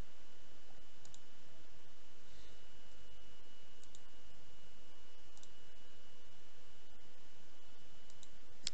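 Computer mouse clicking, a handful of faint clicks spaced a second or more apart, some in quick pairs, with the loudest near the end. A steady hiss with a faint high whine runs underneath.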